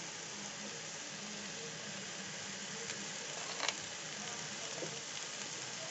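Carrot halwa sizzling softly in ghee in a steel pan on the stove: a steady low hiss, with one faint click a little past halfway.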